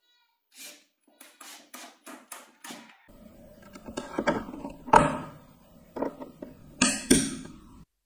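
A cordless drill run in several short bursts at the plastic pulsator hub, followed by handling noise and knocks as parts are fitted, with two loud thumps about five and seven seconds in.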